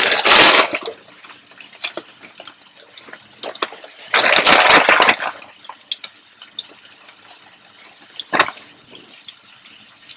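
Chicken and mushrooms sizzling in hot oil in an electric skillet, a steady crackling hiss. It swells loudly twice, at the start and about four seconds in, and there is one sharp click near the end.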